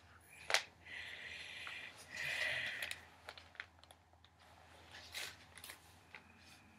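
Handling noise from a paper magazine: a sharp tap about half a second in, two stretches of rustling as the magazine is picked up and held up, then a few light clicks.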